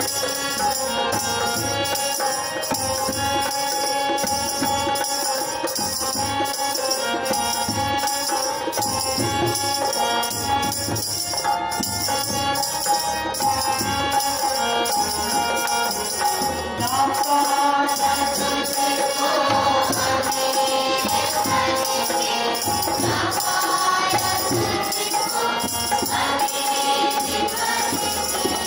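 Hindi devotional prayer song sung by a group over a microphone, with a held keyboard accompaniment, dholak and tabla and a steady jingling beat. The singing grows louder a little past the middle.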